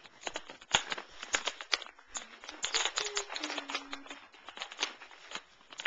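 A cat chewing crunchy dry cat treats close to the microphone: a quick, irregular run of sharp crunches and clicks.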